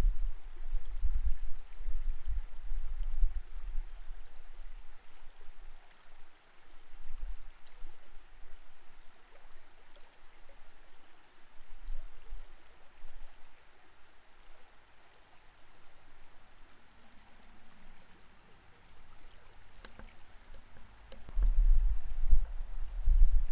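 Creek water flowing, heard underwater through a submerged camera: a steady faint hiss with deep, uneven surges that are strongest in the first few seconds and again near the end.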